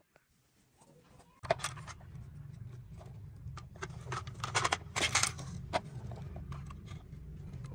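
Hard plastic toys knocking and scraping: a toy excavator's plastic bucket clacking against a plastic toy train carriage and loose plastic track pieces on sandy ground. The knocks come in quick clusters, densest about a second and a half in and again around the middle. A low steady rumble comes in about a second and a half in.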